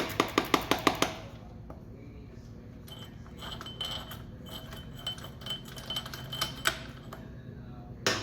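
Ratcheting 10 mm wrench clicking quickly as the carburetor float bowl fastener is loosened. This is followed by lighter metallic clinks and taps with a faint ring, and a couple of sharper knocks near the end.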